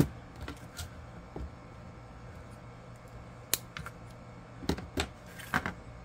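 Scattered small clicks and taps of beads and metal jewellery findings being handled, with a sharper click about three and a half seconds in and a few more together near the end.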